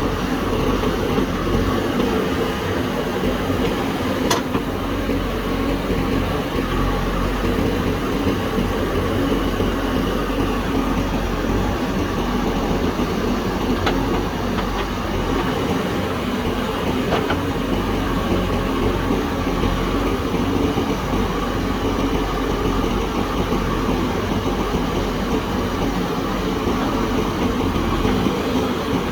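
JCB backhoe loader's diesel engine running steadily under work, with a few brief sharp clanks.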